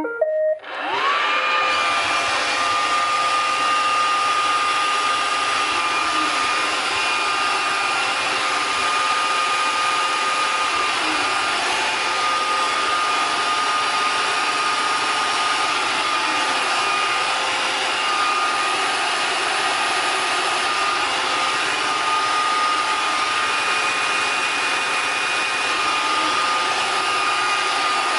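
iRobot Roomba 540 robot vacuum starting to clean: its vacuum motor spins up with a rising whine in the first second or two, then runs steadily, a high whine over an even rushing hiss. This is the robot running in its 'circle dance' fault.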